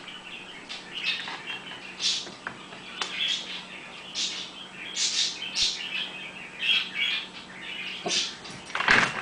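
Small birds chirping in short, high bursts, about one or two a second. Near the end, a louder rustle.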